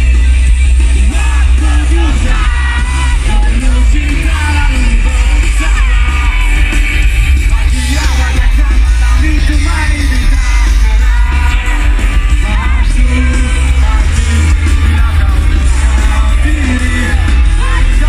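Live rock band playing a song with singing over heavy bass.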